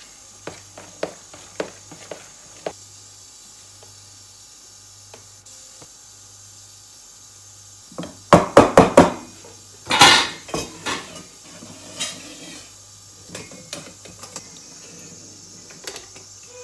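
Kitchen utensils clinking and clattering: a spoon knocking against a mixing bowl and steel idli plates while rava idli batter is portioned into the moulds. A few light clicks come first, then a cluster of loud clatters about eight seconds in and a scrape just after.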